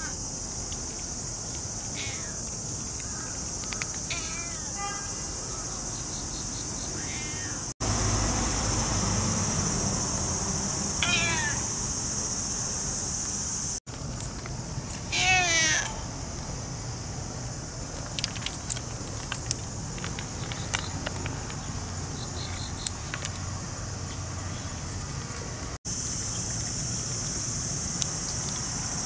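Cats eating dry cat food, with a few meows, the loudest about halfway, and sharp little crunching clicks in the later part, over a steady high chorus of insects.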